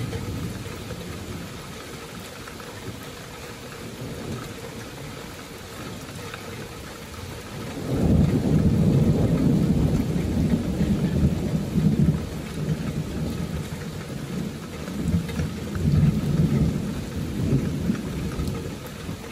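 Steady rain falling in a thunderstorm. About eight seconds in, a long roll of thunder breaks in and rumbles in waves, easing off near the end.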